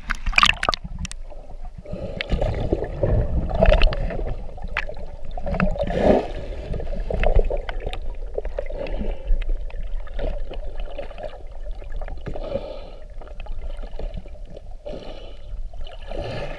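Muffled underwater sound picked up by an action camera in its waterproof housing: water sloshing and gurgling around the camera as a swimmer moves, with many scattered small clicks.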